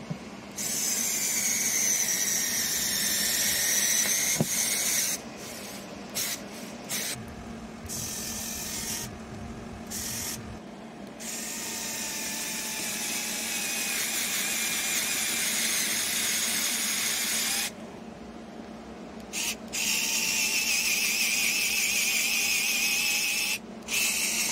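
SKIL 4V cordless screwdriver's small electric motor whining as it first drives a screw into a drywall anchor, then drills into MDF with a twist bit. It runs in several long stretches of a few seconds each, with short stop-start bursts in between, and its pitch wavers slightly as the load changes.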